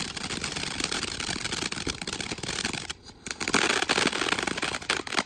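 'Power On' ground fountain firework spraying sparks with a dense, continuous crackle. The sound drops out briefly about three seconds in, then comes back louder.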